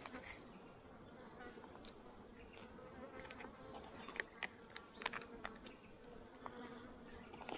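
A flying insect buzzing with a steady, slightly wavering hum, with faint clicks and scrapes of a spoon working in a foil food pouch from about halfway through.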